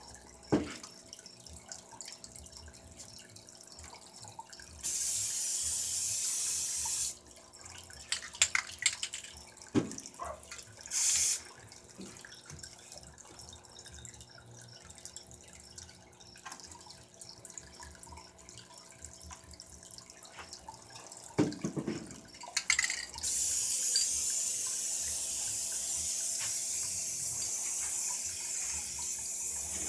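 Aerosol spray paint can hissing in bursts: a spray of about two seconds, a short spurt, then a long steady spray starting about three-quarters of the way through. Knocks and clicks of cans and objects being set down on the table come in between.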